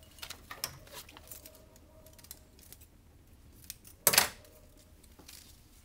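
Pen scratching on a paper form lying on a counter: a run of short, scratchy strokes, with one louder rasping noise about four seconds in.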